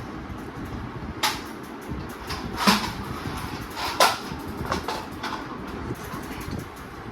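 Utensil knocking and clinking against a dish of cooked food, a handful of sharp clicks with the loudest two about three and four seconds in, over a steady low background rumble.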